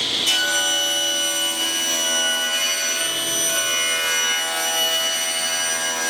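Table saw ripping a glued-up wooden panel to width, the blade cutting into the wood about a third of a second in and then running steadily under load with a high, many-toned whine.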